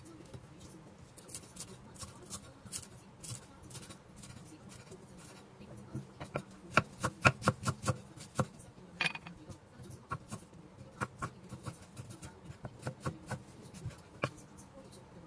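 Chinese cleaver chopping spring onions and ginger on a wooden chopping board: sharp knocks of the blade striking the wood, spaced out at first, then a quick run of about four strokes a second near the middle, then steady slicing strokes.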